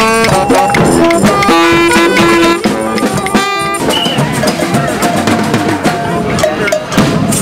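Street band music: horns play a melody of held notes over drums and percussion, and about halfway through the horns drop back and the drumming carries on.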